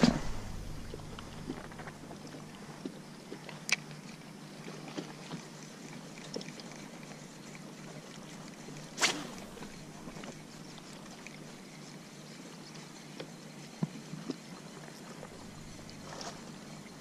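Small waves lapping against a kayak's hull, with scattered faint ticks and a short sharp knock about nine seconds in.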